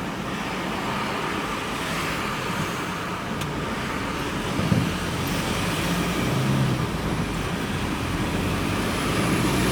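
Van engine and road noise heard from inside the cab while driving, a steady low hum with a brief bump in level about five seconds in.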